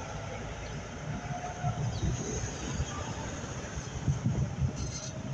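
Road traffic noise: vehicles passing on the nearby road, a steady low rumble that swells about two seconds in and again about four seconds in.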